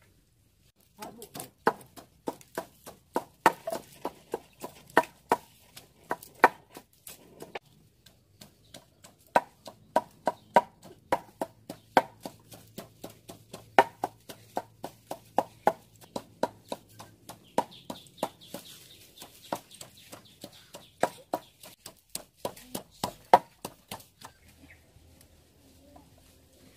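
Wooden pestle pounding chilies and garlic in a wooden mortar: a steady run of sharp knocks, about two to three a second, with a short pause partway through, stopping a couple of seconds before the end.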